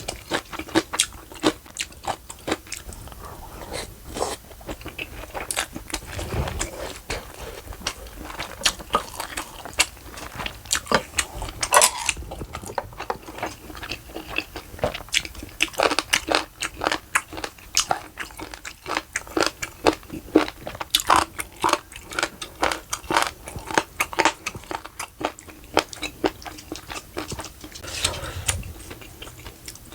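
A person chewing crunchy food, with many crisp crunches coming in quick, irregular succession.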